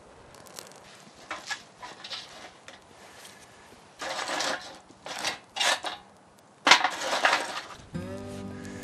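Kindling twigs and pine cones being pushed and dropped into a small metal folding fire grill: rustling and snapping with clinks against the metal, in several short bursts. Background music comes in near the end.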